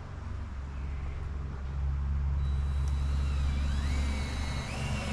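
A motor running steadily with a low, even hum. Near the end, thin high whistling tones glide up and down over it.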